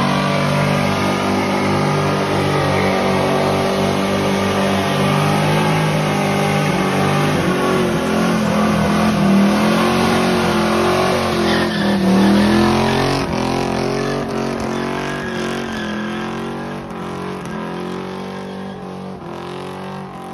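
A hot rod's engine revved hard and held at high revs, its pitch wavering up and down, then dying away over the last several seconds.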